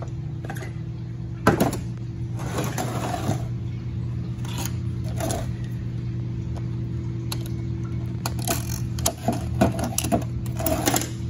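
Irregular metal clinks and scrapes as a 4L80E transmission's clutch drum and snap ring are handled and pried at with a hand tool, over a steady low hum.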